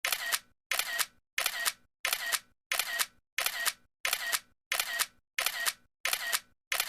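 Camera shutter sound firing over and over at an even pace, about three shots every two seconds, each a short sharp click with a faint ringing tail, as a series of photos is taken.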